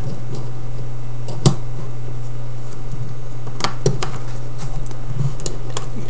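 A few light metallic clicks as the carriage and spring of an out-the-front knife are fitted back into its metal frame by hand: one sharp click about a second and a half in, two more close together near four seconds, over a steady low hum.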